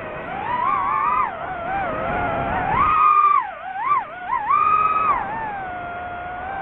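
DJI FPV drone's motors and propellers whining, the pitch sweeping up and down with the throttle as it banks and swoops, highest about three seconds in and again about five seconds in.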